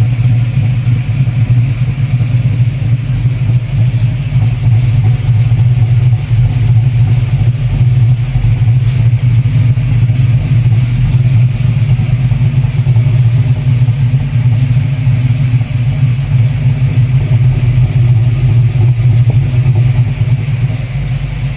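Ford XW Fairmont's engine idling, a loud steady low rumble.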